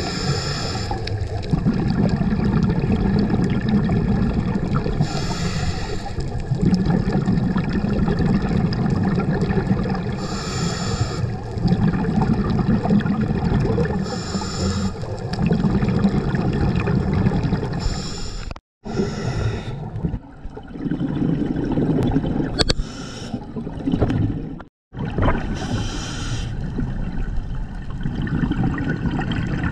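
A scuba diver breathing through a regulator underwater. A hiss comes about every five seconds, alternating with a deep bubbling rumble. The sound cuts out briefly twice in the second half.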